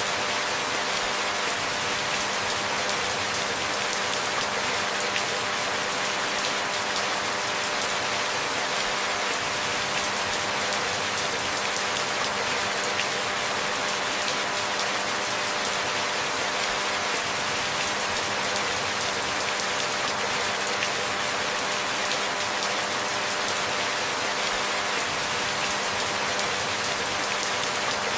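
Steady rain falling, an even hiss of many fine drops that does not change, with a faint steady low hum beneath it.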